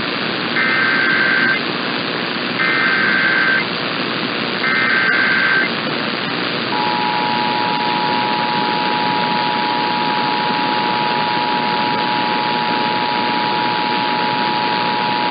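Emergency Alert System tones heard over hissy AM radio. First come three short bursts of the digital SAME header, each about a second long. Then, from about seven seconds in, the steady two-tone EAS attention signal holds on, marking the start of an alert relaying a severe thunderstorm warning.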